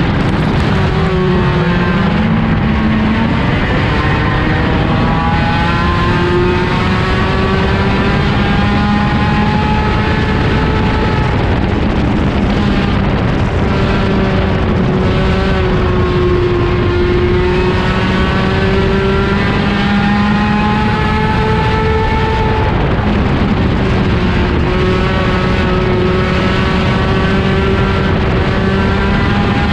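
Race car engine heard from inside the cockpit under practice laps, its pitch climbing as it accelerates and dropping as the driver lifts, over and over every several seconds.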